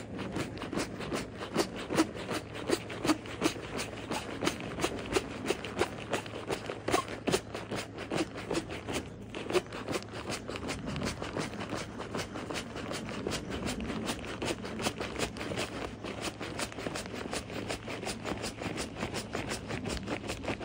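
Inflatable nylon sleeping pad's built-in foot pump being stamped on over and over to inflate the pad: a long run of quick, repeated presses, with louder thumps in the first half.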